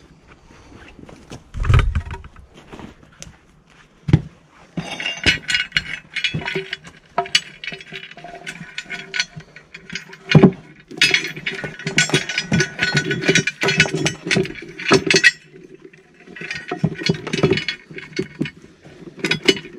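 Heavy steel chain clinking and rattling in bursts as it is handled, with wooden boards knocking as they are laid across the rim of a plastic drum. There is a dull thump about two seconds in and a sharp knock about halfway through.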